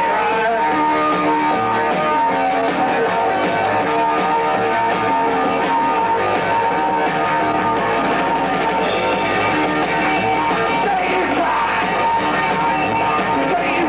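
A rock band playing live: loud, continuous electric guitar and band music with singing.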